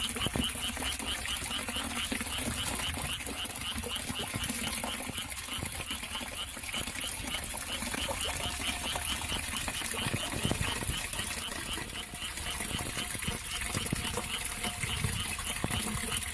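Water rushing down a cliff as a steady wash of noise, with a small animal's high, rhythmic chirping call pulsing about four times a second throughout.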